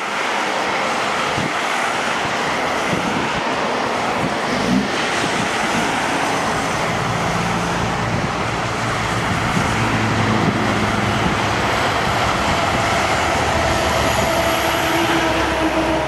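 Jet engine noise from a Boeing 777-300ER's two GE90-115B engines as the airliner rolls out along the runway after landing: a loud, steady roar, with a steady whine coming up near the end.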